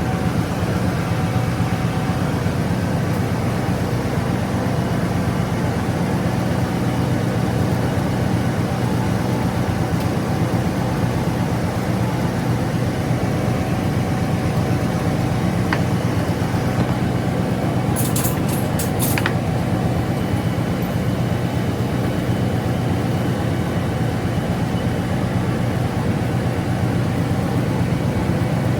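Manual lathe running with a steady mechanical hum, with a few brief sharp clicks a little over halfway through.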